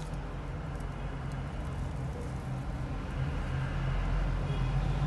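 Steady low machine hum, with a few faint ticks.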